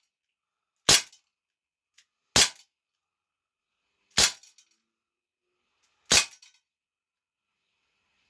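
ASG Dan Wesson .177 pellet CO2 revolver firing four single shots, spaced about one and a half to two seconds apart. Each shot is a sharp crack with a brief tail.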